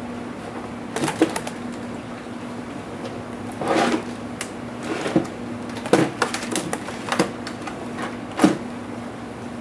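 Irregular clicks, taps and a short scrape of a laptop's plastic and metal parts being handled during disassembly, over a steady low hum.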